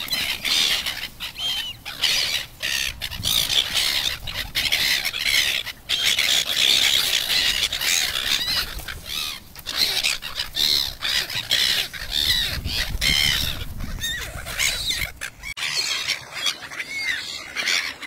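A flock of small gulls squealing and calling over one another without pause while they crowd around to be fed.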